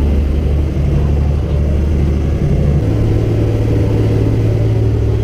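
Motorboat engine running with a loud, steady low drone; about three seconds in, the drone shifts to a slightly higher pitch.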